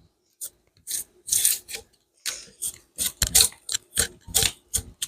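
Hand-forged drawknife shaving bark off a yew stave in short, quick strokes, each a dry scraping rasp, coming irregularly about two or three a second. The blade is cutting through the bark with little effort.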